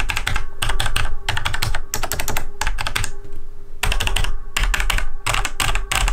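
Logitech G613 wireless mechanical keyboard with Romer-G switches being typed on: keys clacking in quick flurries with short gaps between runs, and a brief pause a little after three seconds in.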